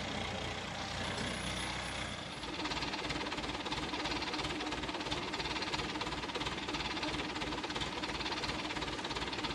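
Diesel engine of an ACE mobile crane running steadily, picking up a little about two and a half seconds in, with a steady hum on top.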